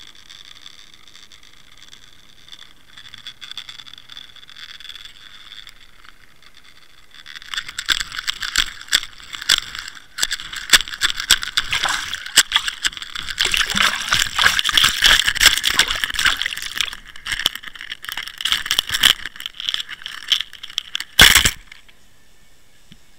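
Water Wolf underwater fishing camera being hauled in on its line, heard through its waterproof housing: a faint steady hiss underwater, then from about seven seconds loud irregular splashing and knocking as it is dragged through the surface, ending with a single sharp knock just after twenty-one seconds as it is landed on the boat.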